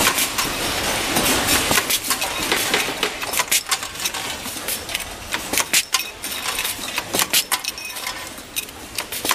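Steel concealed-hinge parts and pins clinking and clicking as they are handled and assembled, with many sharp metallic clicks over a steady workshop din that is loudest in the first few seconds.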